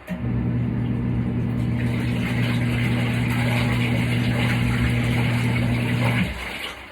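Portable twin-tub washing machine's wash motor humming as the pulsator churns water and laundry, with rising sloshing. It cuts off about six seconds in, the pause before the wash tub turns the other way.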